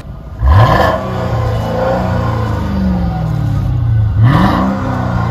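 Mercedes SL 500 R230's 5-litre M113 V8 revved twice, about four seconds apart: each blip rises sharply in pitch and then falls slowly back toward idle.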